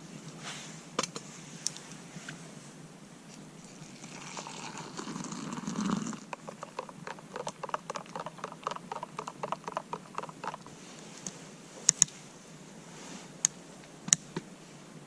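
A spoon stirring in a camping mug, rapid light taps about four a second for several seconds. Before it comes a swelling pour of liquid into the mug, and near the end a few sharp separate clicks.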